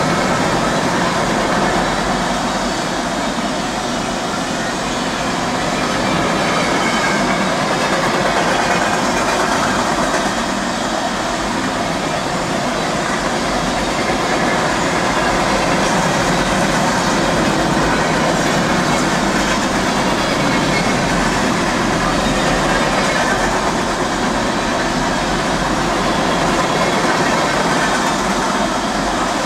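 Freight train rolling past, with a steady noise of its car wheels on the rails.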